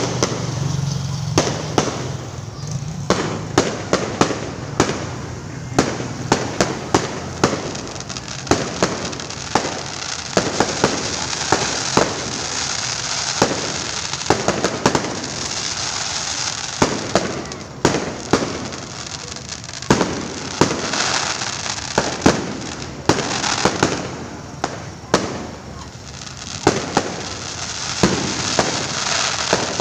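Fireworks display: many sharp bangs, some in quick clusters, over continuous crackling.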